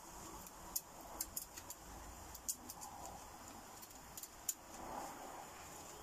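Dry kindling crackling and snapping: a series of sharp, irregular clicks and cracks, bunched around the first and fourth seconds, over a low outdoor background hiss.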